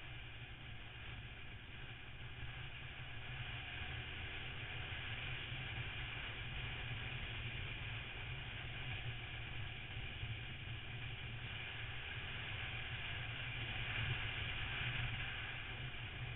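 Motorcycle engine running steadily at road speed, with wind and road noise on the camera microphone.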